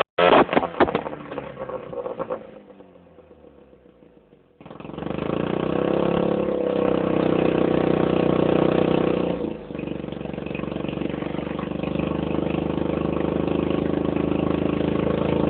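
Rebuilt turbocharged Mazda 13B rotary engine of an RX-7 FC3S running. A loud sound fades away over the first couple of seconds into a quiet spell, then the engine comes in suddenly about four and a half seconds in, rises a little in pitch, and settles to a steady idle.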